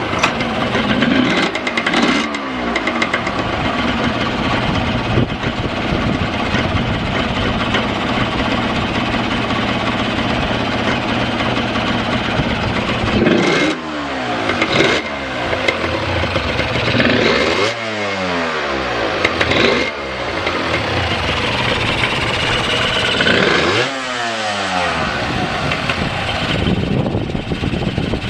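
Honda NSR250 two-stroke motorcycle engine running and being blipped several times, its pitch rising and falling back each time. The seller describes its idle as steady with no abnormal noises.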